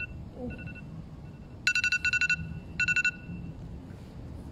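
Electronic timer alarm beeping in quick groups of high beeps, about four in a row and then three more, marking the end of a one-minute timed exercise set.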